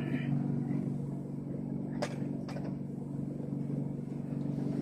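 A steady low motor hum, even in pitch, with two sharp clicks about half a second apart near the middle.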